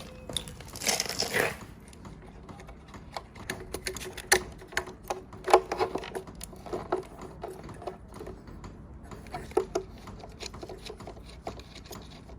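Irregular clicks, knocks and light metallic taps of parts and tools being handled, some with a brief ring, with a short scraping rush about a second in.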